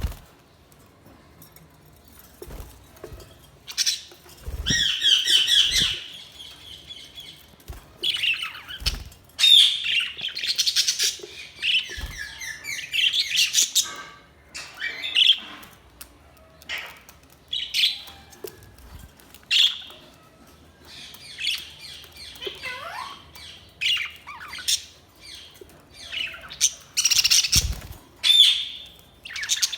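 Budgerigars chirping and chattering in quick warbling runs with short pauses between, and a few dull knocks underneath.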